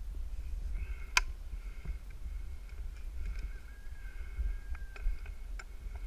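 Wind buffeting the microphone of a helmet-mounted camera high in a tree, as a low, uneven rumble. Scattered light clicks and knocks come through, the sharpest about a second in.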